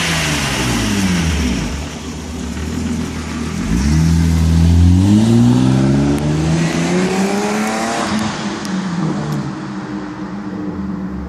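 BMW E36 325i's M50TU 2.5-litre straight-six on its original stock exhaust, revved up and let fall back to idle twice: it comes down from a rev at the start, climbs again about four seconds in, holds, and drops back to a steady idle near the end.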